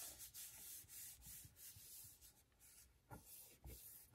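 Near silence with faint rubbing and handling of paper and cardstock, and a couple of soft knocks about three seconds in.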